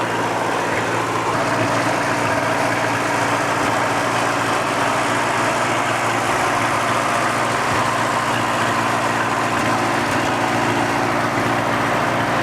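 Carbureted gas tractor engine idling steadily.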